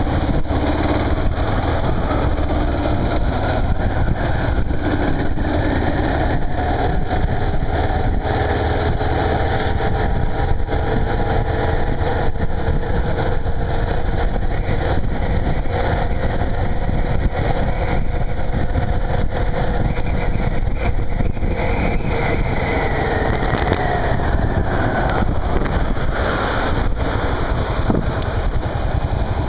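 Motorcycle engine running under way, with wind on the microphone. The engine's pitch climbs slowly as it accelerates, then drops away about three quarters of the way through as it slows.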